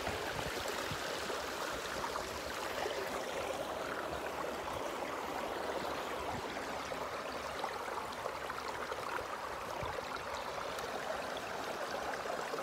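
Shallow seawater lapping and trickling at the shore, a steady watery babble with small ticks and splashes scattered through it.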